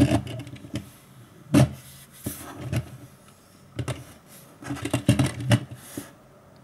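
A small plastic LEGO car handled and turned around on a tabletop: a scatter of separate knocks and short scraping and rolling noises with quiet gaps between them.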